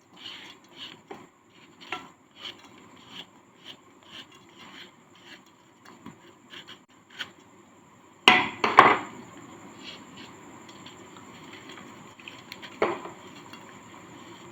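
Hardened sand cake being shaved in short, dry scraping strokes, about two a second. About eight seconds in come two loud crunches as it breaks, and one more crunch near the end.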